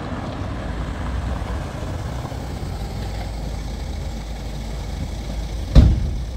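White delivery van's engine idling close by with a steady low rumble. Near the end comes one loud thud, its door being slammed shut.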